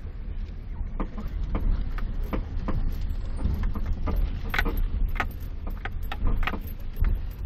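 Daewoo Lanos suspension knocking and squeaking: a run of irregular knocks and creaks, about two a second, over a steady low rumble.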